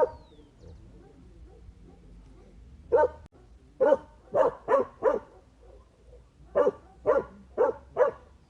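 A dog barking: a single bark at the start and another about three seconds in, then a quick run of four barks, a short pause, and four more barks at an even pace.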